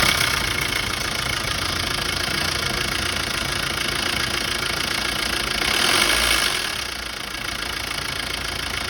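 Diesel engine idling with extra noise from the timing-chain side, louder than a normal engine: the timing chain has gone slack and let the timing slip by half a step. It swells briefly about six seconds in, then settles slightly quieter.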